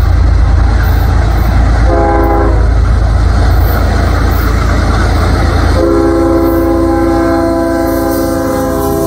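Passing freight train led by a Norfolk Southern GE ES44DC diesel locomotive, its engines running with a loud low rumble. The locomotive's air horn sounds a short chord about two seconds in, then a long blast from about six seconds that is still sounding at the end.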